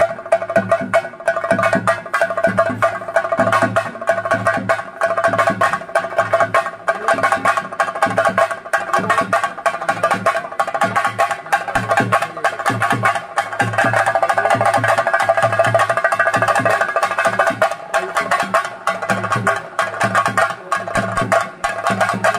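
Chenda drums beaten in a fast, dense, unbroken rhythm, with a steady tone held above the drumming.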